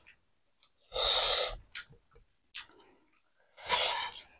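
Two short, noisy puffs of breath through the mouth, about a second in and again near the end, with a few faint clicks of eating between.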